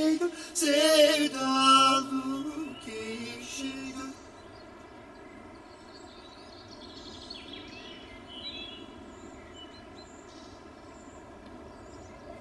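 Soundtrack music: a sung, melismatic vocal phrase that ends about four seconds in, followed by a quiet sustained tone.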